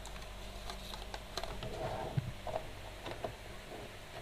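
Faint scattered clicks and light handling noise of a plastic mouse and its hard plastic packaging tray as the mouse and cable are lifted out and moved about.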